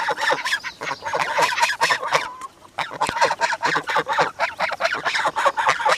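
Several domestic geese honking, many short calls overlapping in quick succession.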